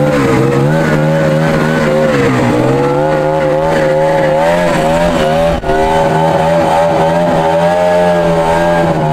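Vintage snowmobile's two-stroke engine running under load as it tows a couch on skis, its pitch rising and falling with the throttle.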